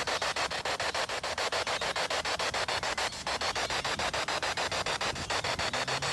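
Spirit box scanning through radio stations: a steady hiss of static chopped into short, even pulses several times a second.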